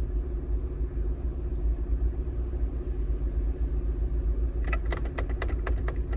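Honda Jazz engine idling steadily, heard from inside the cabin. From about three-quarters of the way in, a quick run of sharp clicks: a dashboard button pressed repeatedly to set the clock.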